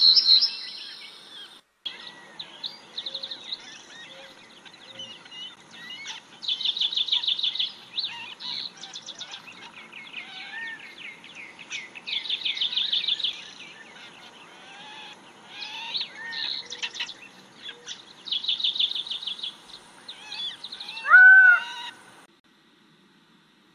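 Several birds singing and calling: bursts of fast, high repeated trills, with softer chirps and whistles between them and a louder, lower call near the end. The sound stops abruptly about two seconds before the end.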